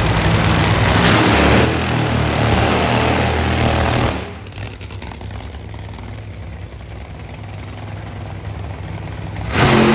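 Drag racing cars' engines at full throttle on the strip, very loud for about four seconds, then dropping away to a lower, steadier engine noise. The full loudness returns abruptly near the end.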